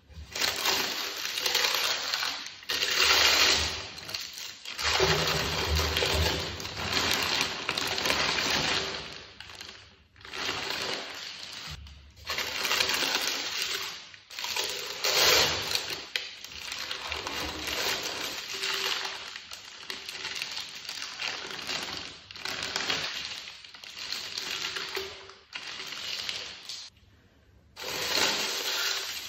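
Tissue paper and a clear plastic shoe bag crinkling and rustling as hands unwrap a pair of shoes in a cardboard box. It comes in bursts of a second or two with short pauses between.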